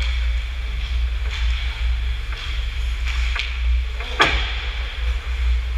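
Ice hockey play around the net: skate blades scraping the ice and sticks clicking, with one sharp crack about four seconds in during a scramble in front of the goal, over a steady low rumble.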